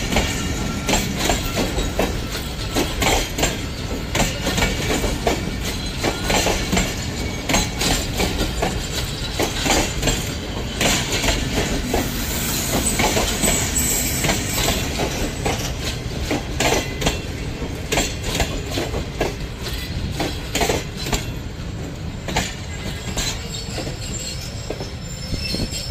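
Pakistan Railways passenger coaches rolling past, their wheels clacking in a quick, uneven run over rail joints above a steady rumble, with some wheel squeal as the train slows to stop at the station.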